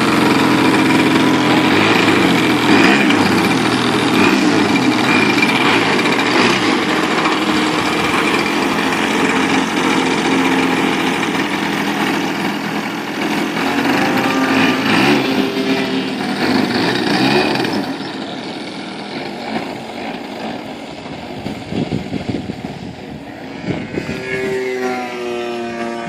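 Two-stroke 50cc gas engine of a giant-scale RC Edge aerobatic plane running at high power. It is loud for the first two thirds, then fades, and near the end its pitch bends up and down as the plane moves away.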